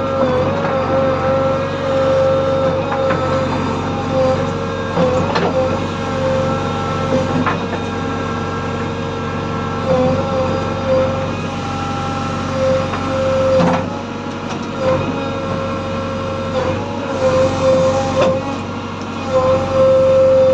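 JCB 3DX backhoe loader's diesel engine running steadily under work, with a steady whine that drops out now and then and several sharp knocks spread through.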